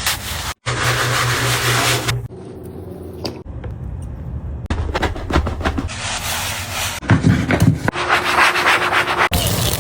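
A run of short cleaning sounds cut together: scrubbing and rubbing on surfaces, some sections with a steady low hum underneath, each changing abruptly to the next.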